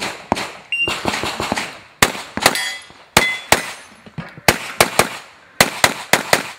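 Semi-automatic pistol firing in quick strings of two to four shots during a practical shooting course of fire. A brief metallic ring follows a couple of the shots.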